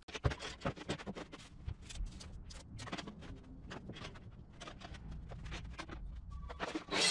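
Irregular light knocks, taps and scrapes of sheet boards and a metal saw guide rail being handled and laid onto sawhorses.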